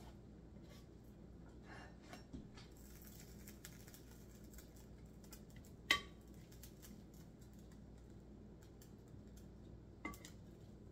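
Faint kitchen handling sounds: a few sharp clicks or clinks, the loudest about six seconds in and another near the end, with small ticks around two seconds in, over a low steady hum.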